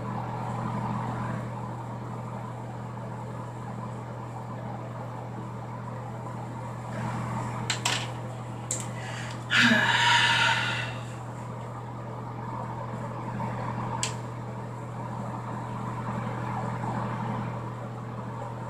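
Steady low hum of room ventilation, with a few light clicks and a short breathy rush of noise about ten seconds in.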